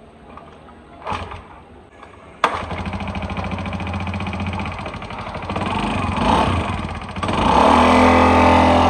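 A small automatic scooter's engine being kick-started: it catches suddenly about two and a half seconds in and runs steadily, then revs up and runs louder from about seven seconds in as the scooter moves off.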